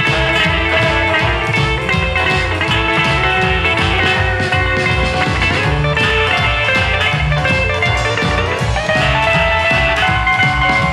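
Rockabilly band playing an instrumental passage with no singing: a guitar lead over a steady beat of double bass and drums, with a bent note rising about three-quarters of the way through.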